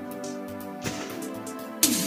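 Background music with soft held tones; shortly before the end it jumps louder and busier, with sharp percussive strokes.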